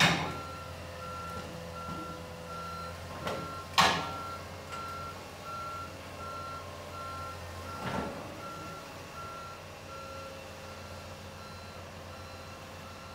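Komatsu tracked excavator's travel alarm beeping at an even pace over its diesel engine running, as the machine tracks onto a trailer deck. Heavy metal clanks sound at the start, about four seconds in (the loudest), and about eight seconds in, when the engine hum drops.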